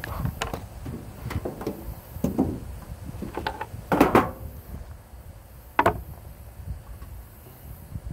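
Irregular knocks, clicks and rustles of things being handled, the loudest about four seconds in and another sharp knock near six seconds, over a low steady rumble.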